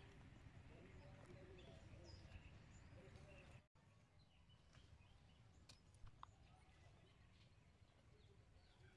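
Near silence: faint outdoor ambience with a low rumble and scattered faint bird calls. The sound drops out for an instant nearly four seconds in and comes back quieter, with a few soft ticks.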